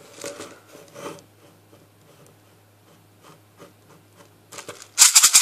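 Plastic bottle of 6 mm airsoft BBs being handled, with soft rubbing and light ticks as it is turned in the hands, then a short loud rustle near the end.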